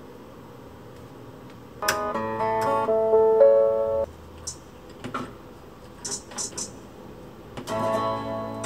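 BALMUDA The Range oven playing its guitar-sample operation sounds. A strummed guitar chord rings about two seconds in, a few short ticks follow, and another chord sounds near the end as the oven starts preheating to 230°C.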